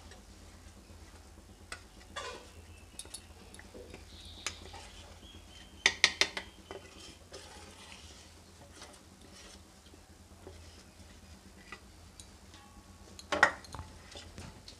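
Metal spoon scraping and tapping against steel bowls as batter is spooned into a steel tiffin bowl, with scattered light clinks. A quick cluster of clinks comes about six seconds in and a louder clank of steel near the end.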